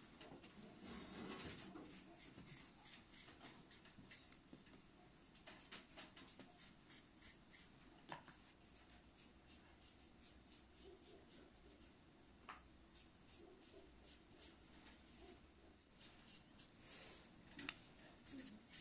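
Faint, quick scraping strokes of a small knife peeling the skin off a fresh cucumber, coming in runs of several strokes a second, with a couple of sharper single clicks between them.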